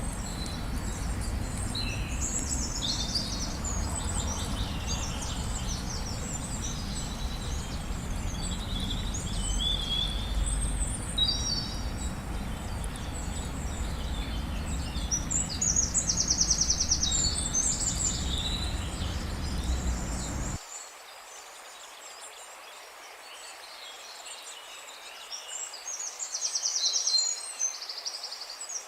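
Many birds singing and calling at once, a busy chorus of chirps and trills, with rapid trills standing out twice. Beneath it a low steady rumble drops out abruptly about two-thirds of the way through.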